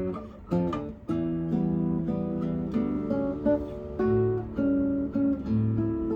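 Solo acoustic guitar played: plucked melody notes ringing over held bass notes, with a short break about half a second in before the playing resumes.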